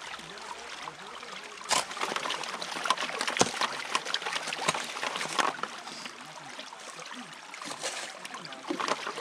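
Water trickling and splashing as gravel is worked in a gold pan at the creek, with scattered sharp clicks and knocks.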